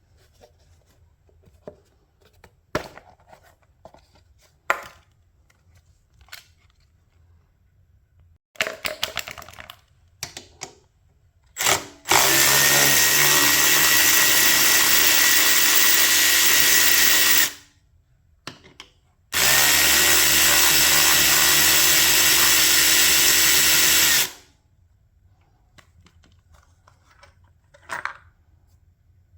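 Handheld power tool motor running at a steady speed twice, about five seconds each time. Scattered clicks and knocks of tool handling come before.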